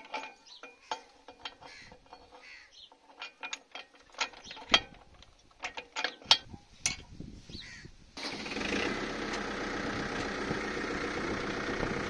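Sharp metal clinks and knocks as a tractor's top link is fitted into a plough's mast and pinned. About eight seconds in, the steady running of the Kubota MU4501 tractor's diesel engine starts suddenly.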